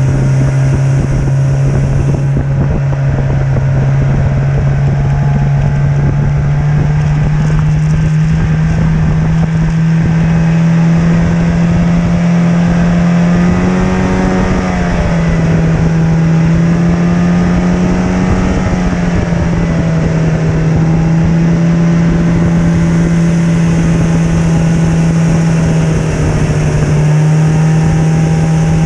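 Snowmobile engine running steadily at cruising speed, heard from on board the sled, with its pitch wavering up and down briefly a couple of times midway as the throttle changes.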